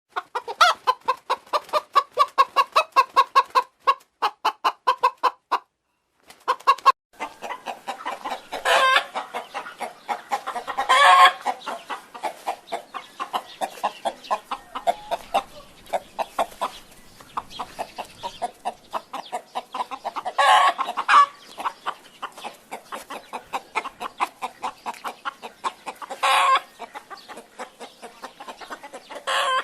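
Domestic chickens clucking: a quick run of short clucks for about five seconds, a brief pause, then steady clucking with several louder, drawn-out calls spread through it.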